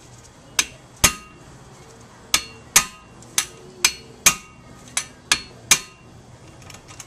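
A hammer strikes a hand impact screwdriver about ten times in quick groups of two or three, each blow a sharp metallic clank with a brief ring. It is driving the brake rotor's retaining screws tight.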